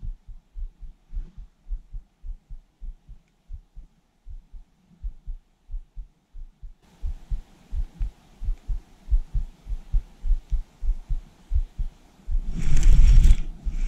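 Spinning reel being cranked while a hooked bass is reeled in, heard through a chest-mounted camera as a steady run of low thumps, about three a second. A faint hiss joins partway through, and there is a louder burst of noise near the end.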